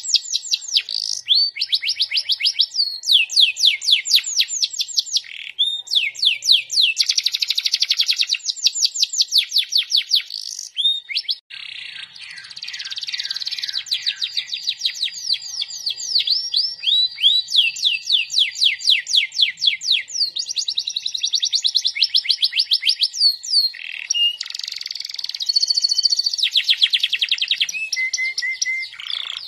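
Domestic canary singing a long, loud song of rapid trills, phrase after phrase with quick changes of note, breaking briefly about eleven seconds in before carrying on.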